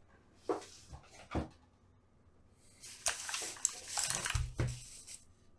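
Unboxing packaging being handled: a few soft knocks, then about two seconds of plastic wrapping rustling, with a couple of dull thuds near the end.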